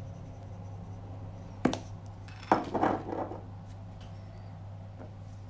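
A plastic spice shaker being handled on a stone worktop over a steady low hum: a sharp click about a second and a half in, then a knock and a short clatter about a second later.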